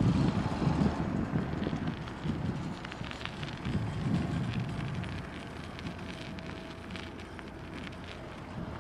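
Wind buffeting the microphone, heaviest at the start and easing off, with scattered crackles and clicks.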